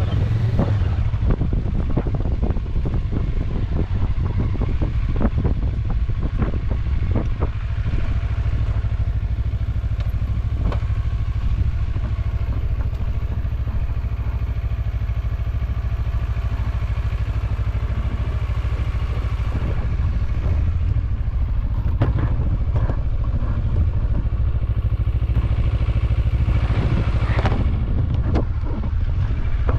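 A vehicle engine runs steadily while driving over rough off-road ground, with frequent knocks and rattles from the bumpy track.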